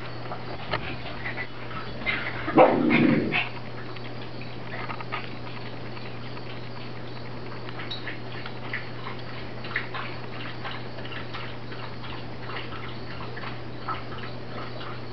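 Small dogs, a Maltese and a Yorkshire terrier, playing: one brief loud dog vocalisation about two and a half seconds in, with scattered light clicks through the rest, over a steady low hum.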